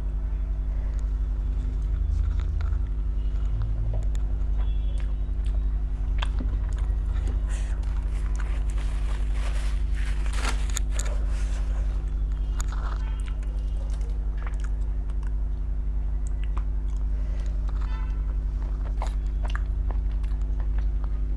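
Someone chewing and biting food with mouth sounds: scattered small clicks and crunches, busiest about halfway through. All of it sits over a steady low hum that is louder than the eating.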